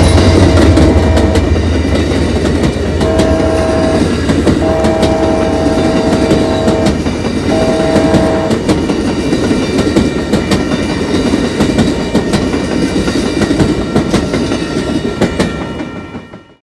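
Amtrak passenger train led by GE P42DC diesel locomotives passing close by. The locomotive horn sounds several blasts over the first nine seconds over a deep engine rumble that is loudest at the start. The wheels clatter over rail joints, then everything fades out near the end.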